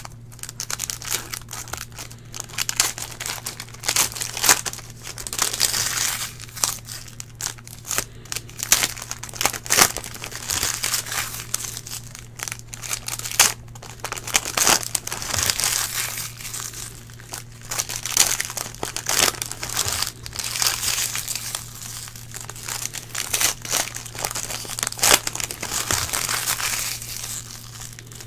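Foil trading-card packs crinkling as they are handled and torn open, with irregular crackles and sharp clicks, over a steady low electrical hum.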